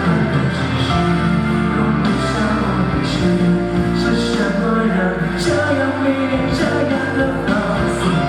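Live pop song performance: a young male singer's voice over a backing track with regular drum strokes, steady and loud, with the echo of a large hall.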